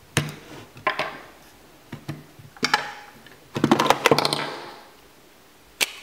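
Plastic LEGO Duplo bricks clicking and clattering as they are pulled off the boat and set down on a table, in several separate clicks with a busier clatter a little past the middle.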